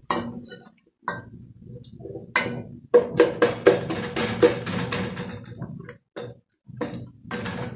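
Wooden spoon stirring a thick chili-paste base in a stainless steel pot, knocking against the metal pot in scattered strokes, with a quick run of about six knocks a second through the middle; each knock leaves a short ring from the pot.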